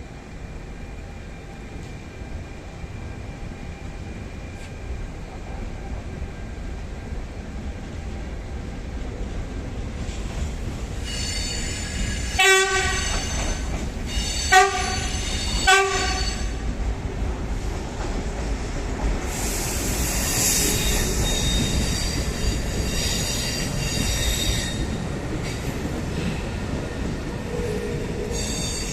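Train running through a station: a low rumble builds, three short horn toots sound about halfway through, then high metallic wheel squeal sets in from about two-thirds of the way.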